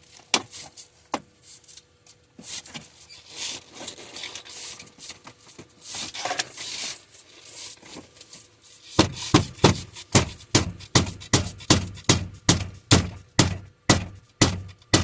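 Prying and scraping at a metal bar inside a 2002-2006 Dodge Sprinter's passenger dashboard, with a few clicks, then from about nine seconds in a steady series of sharp knocks, about two a second, on the dash panel to test for the metallic rattle.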